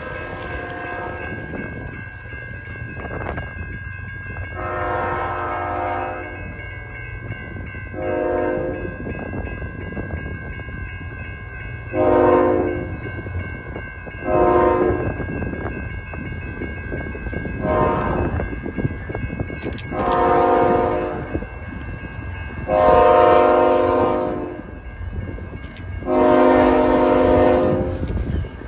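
BNSF freight train's diesel locomotives approaching, sounding a multi-note air horn in a series of short and long blasts that grow louder as the train nears, over a steady low engine rumble.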